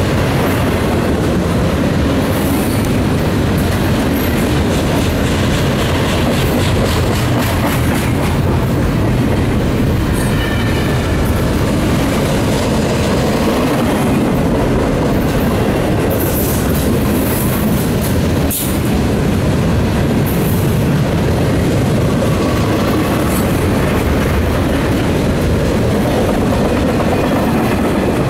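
Loaded double-stack intermodal container cars of a CSX freight train rolling steadily past close by: a continuous rumble of steel wheels on the rails. Faint wheel squeals rise briefly about ten seconds in and again around twenty seconds.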